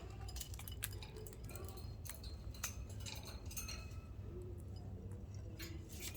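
Irregular light clicks and clinks from a caged pet bird pecking and tapping its beak on its cage or toys, over a low steady hum.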